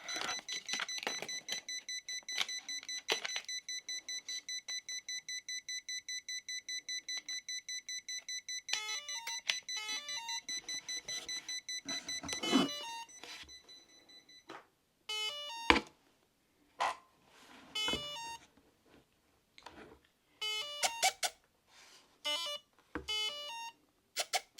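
Electronic beeping from the RC helicopter's radio and electronics as they are powered up: a fast run of identical short beeps, about five a second, stops about fourteen seconds in. From about nine seconds in come short stepped multi-note tone sequences, with handling clicks and knocks between them.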